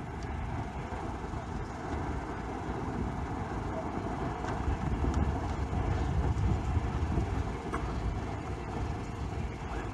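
Steam locomotive and its train moving slowly on the approach, a low rumble that swells in the middle and eases near the end.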